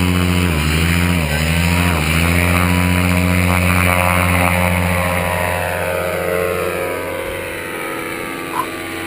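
Paramotor engine running at full throttle during a takeoff run, its pitch dipping briefly three times in the first two seconds, then holding steady and gradually growing fainter.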